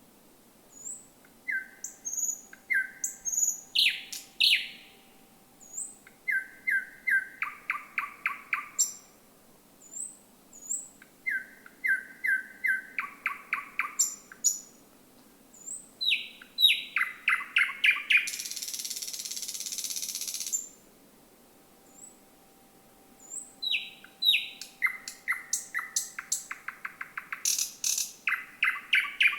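Thrush nightingale singing in separate phrases of sharp whistled notes and rapid runs of repeated clicking notes. About eighteen seconds in, a loud harsh rattle lasts a couple of seconds, and another begins near the end.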